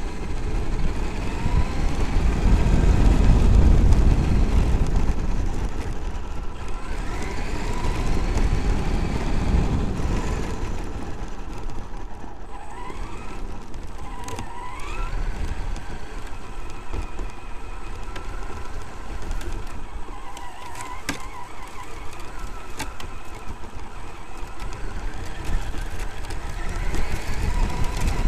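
Onboard sound of a Traxxas X-Maxx electric RC monster truck: its brushless motor whines, the pitch rising and falling with the throttle, over a heavy rumble of tyres and chassis on gravel, later on grass.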